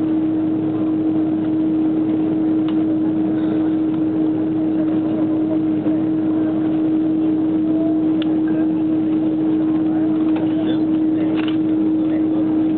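Airbus A330 jet engines running at taxi power: a steady drone with one constant low tone under it.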